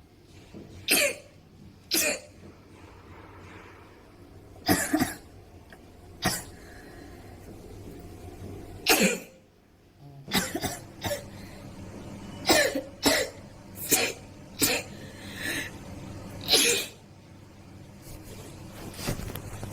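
A girl sneezing over and over in short, sharp sneezes, more than a dozen in all: a few seconds apart at first, then a quicker run of them in the second half.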